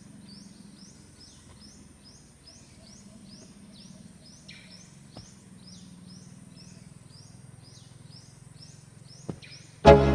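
Quiet rural ambience with a high chirping call repeated steadily about three times a second. Music comes in loudly near the end.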